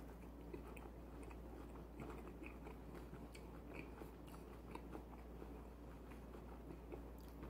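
Faint close-up chewing of a breaded, fried cheese bite: soft crunches and small wet mouth clicks scattered throughout, over a steady low hum.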